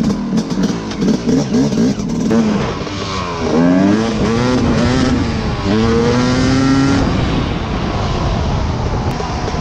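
KTM 250 two-stroke dirt bike running on a new exhaust: a few quick throttle blips, then it accelerates away, the engine note rising through two upshifts about four and six seconds in before holding a steadier speed.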